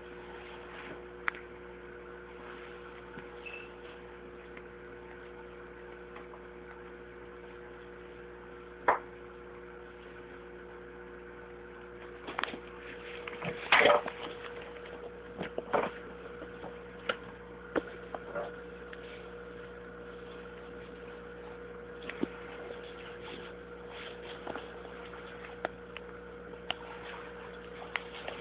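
Steady electric hum of an aquarium's filter pump, holding several fixed tones. Scattered short clicks and knocks cut across it, with a cluster of them around the middle.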